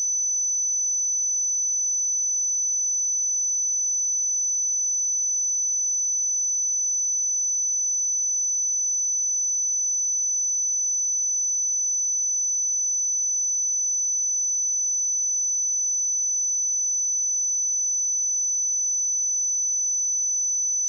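A pure 6014 Hz sine-wave test tone, a steady high-pitched whistle held at one pitch and one level without a break.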